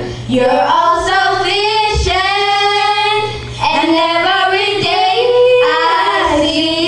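Girls singing a slow gospel worship song with long held notes, breaking briefly for breath near the start and about three and a half seconds in.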